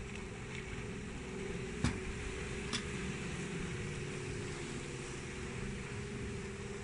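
A 2.8 kW electric outboard motor running at a steady speed, a steady hum with a held tone under the rush of water and wind. Two short clicks come about two seconds in and again a second later.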